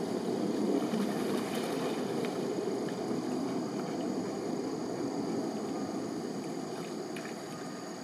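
Steady rush of flowing water, with a few faint splashes as golden retrievers wade and swim through it.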